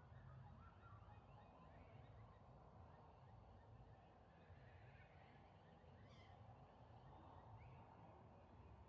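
Near silence at dusk: a faint low rumble of wind with a few faint, distant bird calls, the clearest about six seconds in.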